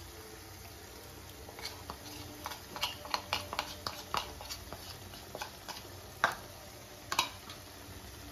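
A metal spoon clicking and scraping against steel cookware as a masala paste is scooped into a kadai. It starts as a quick run of light clicks and ends with two sharper knocks.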